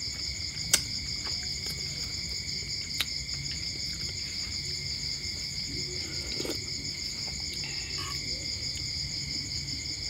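Night insects trilling steadily in a high, even chorus. A metal spoon clinks sharply against a bowl about a second in and again about three seconds in, and there are soft sipping sounds of someone eating soup from a spoon.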